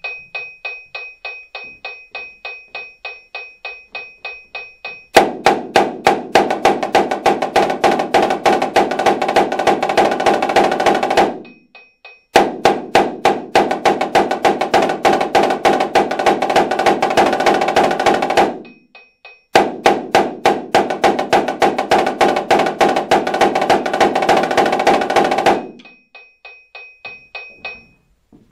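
Marching snare drum (Dynasty) played with sticks in three loud passages of about six seconds each, dense fast strokes, stopping cleanly between them. A metronome clicks evenly at about three to four beats a second in the gaps and at the start and end.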